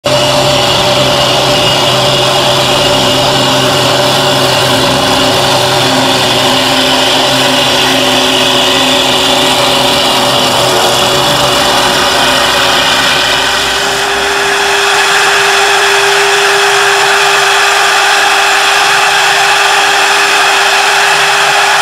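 Four-knife, two-spindle CNC wood lathe running, a steady motor whine over the hiss of knives cutting a spinning wooden blank. About 14 s in the sound dips briefly, then turns brighter and hissier with one steady tone.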